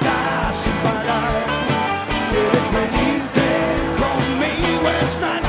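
Live rock band playing an instrumental passage, a saxophone carrying the melody over electric guitar and bass.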